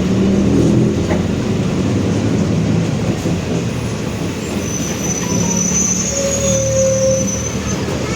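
Mercedes-Benz OF-1721 Bluetec 5 city bus driving, heard on board: its diesel engine and driveline run steadily, with the growl of a noisy differential. A thin high whine comes in about five seconds in, with a short lower tone around six seconds in.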